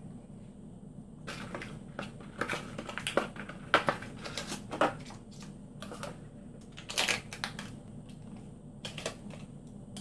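Irregular crackling and crinkling handling noises: a gloved hand scraping old wax off a toilet's porcelain base, then handling a new toilet wax ring in its plastic packaging. The clicks come thick between about one and five seconds in, with a louder crackle about seven seconds in, over a steady low hum.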